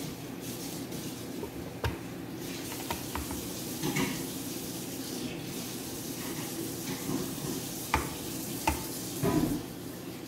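Soft, wet boiled red chili strips being scooped from a bowl and dropped into a glass blender jar, with a few sharp knocks about 2, 4 and 8 seconds in, over a steady hiss and hum.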